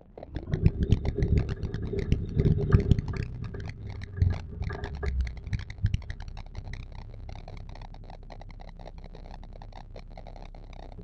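Added sound effect of a rumbling vehicle engine with crackling and scraping, starting abruptly, loudest over the first few seconds and then settling to a steadier, quieter run.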